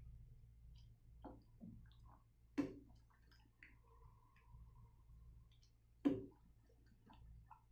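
Wooden spatula stirring a thick mung bean and vegetable stew in a stainless steel pot, with small clicks and two sharp knocks of the spatula against the pot, about two and a half and six seconds in.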